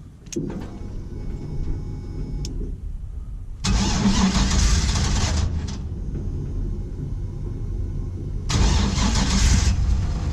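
Swapped GM V8 in a 1949 International KB2 truck cranking on the starter without catching, in a failed attempt to start it. Two louder rushes of noise come through, about four seconds in and again near the end.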